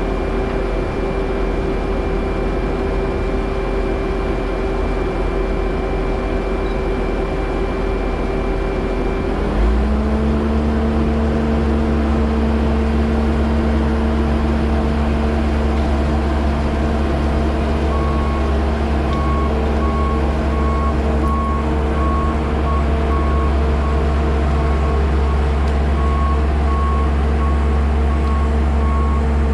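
Skid steer engine running steadily; about a third of the way in it steps up to a higher speed and a heavier, deeper note and holds there. From a little past the middle, a backup alarm beeps in a steady rhythm.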